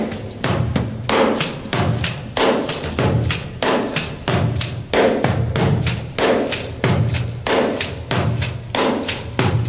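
Tambourine played like a hand drum in a steady groove: deep thumps from the struck head alternate with sharp slaps that set the jingles ringing. The other hand on the head changes its tone.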